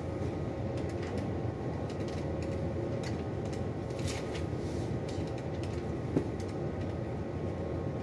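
A steady low background hum, with faint scratching and tapping of pens on paper as people write. There is one sharper tap about six seconds in.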